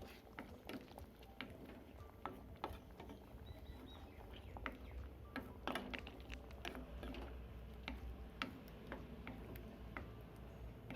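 Yam curry simmering in a wok after water has been added, with faint, irregular pops and ticks of bubbles bursting over a low steady hum.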